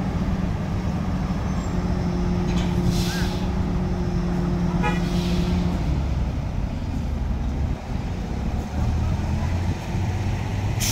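Heavy diesel machinery working a container lift. A steady droning tone is held for about four seconds while the mobile crane raises a 20-foot container off the truck's trailer. It then gives way to a lower diesel engine rumble as the truck pulls out from under the load. There are short hisses of air about three seconds in and at the end.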